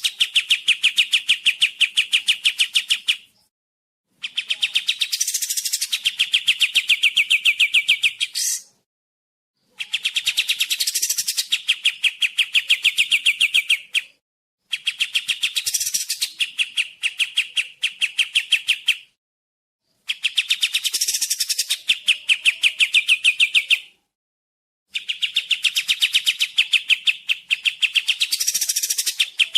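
Pied triller (kapas tembak) song: a rapid trill of many short, evenly spaced notes, each phrase lasting about four seconds and repeated six times with a second's silence between.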